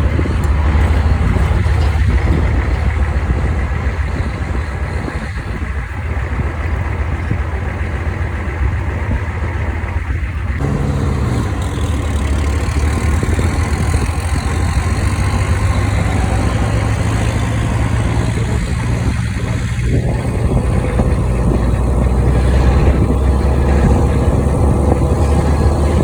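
Gasoline vehicle engine running steadily while under way, with a change in the engine note about ten seconds in.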